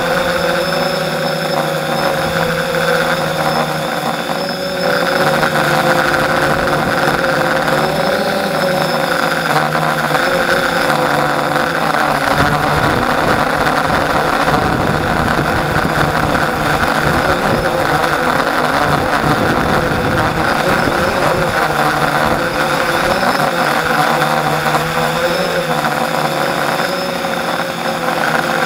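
Scratch-built quadcopter's brushless motors and propellers running, heard from the camera mounted on the frame: a steady multi-toned whine whose pitches waver up and down throughout.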